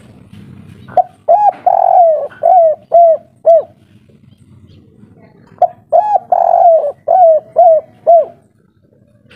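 Spotted dove (tekukur) cooing its song twice, each phrase a couple of short coos, one long drawn-out coo, then three short coos: the 'kuk 3' song type.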